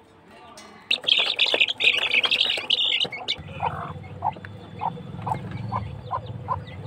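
Chickens feeding on chopped greens: a loud, harsh, noisy burst about a second in that lasts about two seconds, then short soft clucks repeating about twice a second over a low hum.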